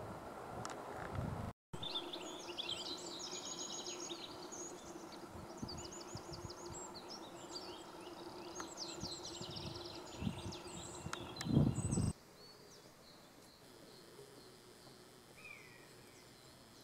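Small songbirds chirping in quick, high-pitched trills over a low steady hum and low rumbling on the microphone. The rumble is loudest just before the sound drops abruptly to a quieter background, about twelve seconds in, and a short falling note follows near the end.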